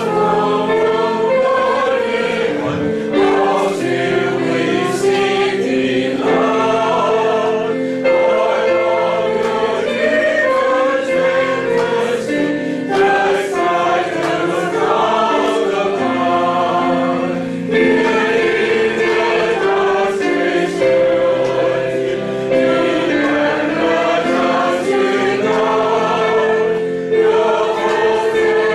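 A small mixed choir of men and women singing together in parts, a steady run of sung phrases with held notes.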